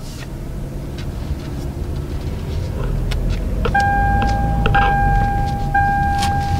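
2011 Hyundai Elantra pulling away, with a low engine and road rumble that builds a little. From about four seconds in, a steady electronic warning chime sounds: a beep about a second long, repeating with short breaks.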